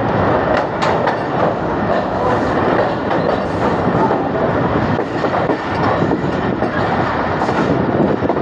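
Passenger train coach running along the track, heard from an open window: a loud, steady rumble of steel wheels on rail with scattered clacks.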